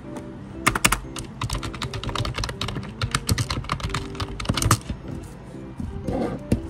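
Typing on a computer keyboard: quick runs of key clicks with short pauses, over soft background music.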